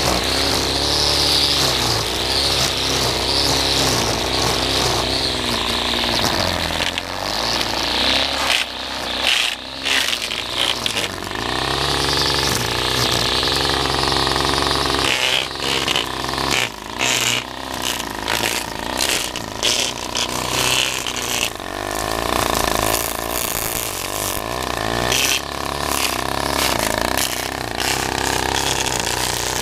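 Petrol string trimmer (brush cutter) engine running, its pitch rising and falling as the throttle is opened and eased off again and again while it cuts.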